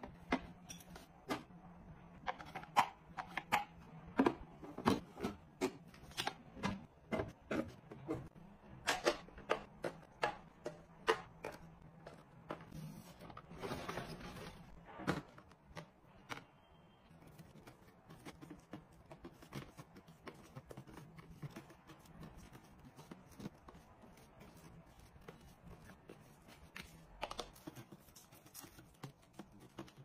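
Plastic storage being handled: a run of sharp clicks and knocks as bottles and packets are set into a plastic refrigerator door bin, then a second or two of rustling. After that come fainter, scattered plastic taps as a plastic draining rack is fitted into a clear storage box and food is laid on it.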